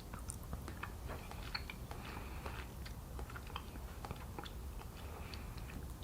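A person chewing gummy fruit snacks: a quiet run of small, irregular mouth clicks and smacks.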